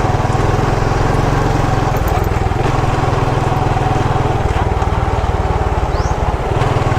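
Small motorcycle engine running at a steady cruise while riding, its low pulsing note shifting slightly a few times, with road and wind noise.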